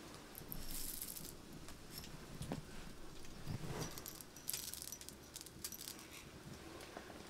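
Dry whole spices poured onto a stone grinding slab: first coriander seeds, then black peppercorns, each a short rattling patter of hard seeds landing on stone, about a second in and again about four and a half seconds in.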